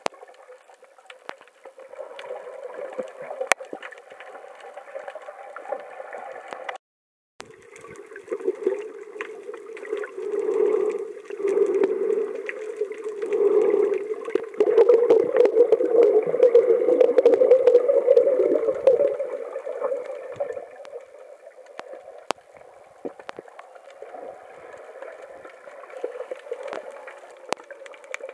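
Muffled water sloshing and gurgling around an underwater camera, with scattered small clicks. The sound cuts out completely for a moment about seven seconds in and is loudest in the middle stretch.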